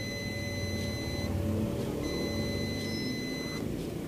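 Digital multimeter's continuity buzzer giving two long, steady, high-pitched beeps of about one and a half seconds each as the test probes touch points on the TV main board, showing a connection between the probed points. A low background rumble runs underneath.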